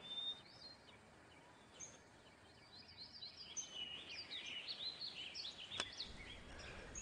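Faint background chirping of small birds, many quick high chirps that grow busier after a near-silent stretch in the first half. A single sharp click near the end.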